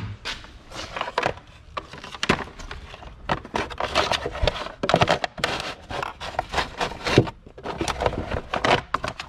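Irregular knocks, clicks and scrapes of objects being handled, several a second.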